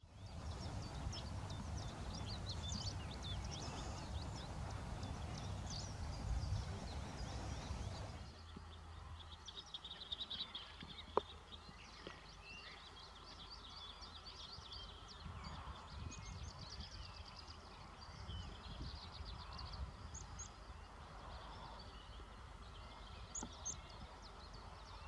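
Outdoor ambience of many birds calling in short, high chirps over a low rumble. After an abrupt change about eight seconds in, the background is quieter, with scattered calls and a single sharp click.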